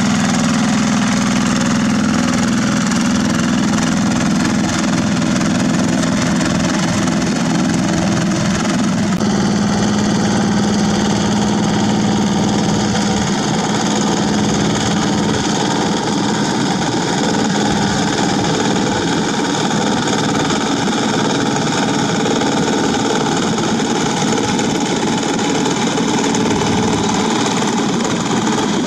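Yanmar single-cylinder diesel engine of a two-wheel walking tractor running steadily under load as its rotary tiller works through wet paddy mud; the engine note shifts about nine seconds in.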